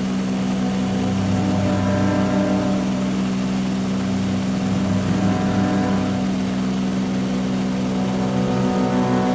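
Aircraft engine droning steadily, a constant low hum that wavers slightly in places.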